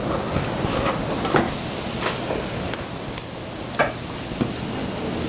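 A metal spoon scraping and clicking against a stainless steel mixing bowl while scooping out thick divinity candy, a handful of sharp clinks. Under it, a steady hiss of heavy rain.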